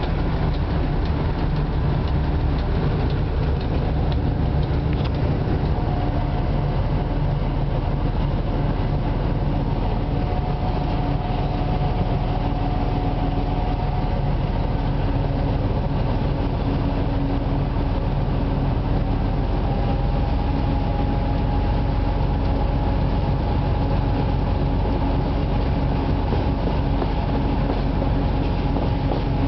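2M62 diesel locomotive's 14D40 two-stroke V12 engine running steadily while the locomotive is under way, heard from inside the cab, with the rumble of the wheels on the rails.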